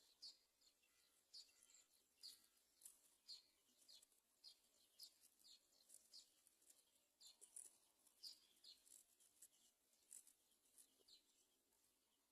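Faint, high-pitched bird chirps: short downward-sliding notes repeated about twice a second.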